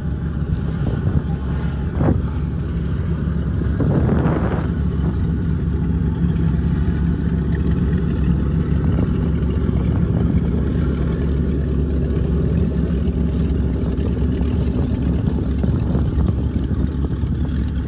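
An engine running steadily with a low, even hum, with a short knock about two seconds in and a brief rushing noise about four seconds in.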